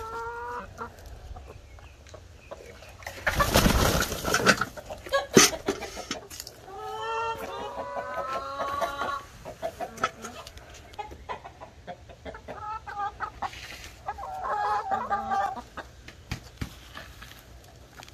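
Hens clucking and calling in several short bouts. A loud rustling noise comes about three seconds in, followed by a sharp knock a second or so later.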